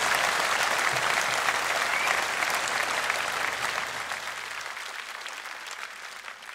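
A large audience applauding, the clapping dying away steadily over the last few seconds.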